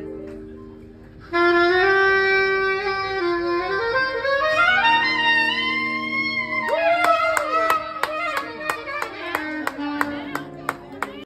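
Alto saxophone played live close up, coming in loud a little over a second in with held notes, then climbing in a long rising run. From about the middle on, rhythmic handclaps keep time with it.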